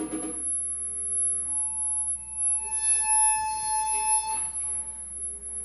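Electric guitar feedback through the amplifier: one steady, piercing tone that swells with shrill overtones in the middle and cuts away about four and a half seconds in, over a low amplifier hum.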